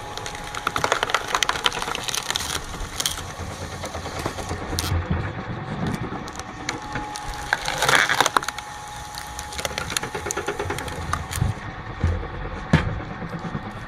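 Wood cracking and splintering as logs are split apart, with many irregular sharp cracks. The loudest burst of cracking comes about eight seconds in, and a single sharp crack comes near the end.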